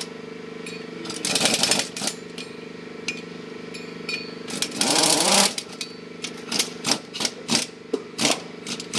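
Impact wrench rattling in two bursts of about a second each, then in a quick string of short pulses near the end, running down the nuts that fasten a wheel spacer to a brake-drum hub. A steady hum runs underneath.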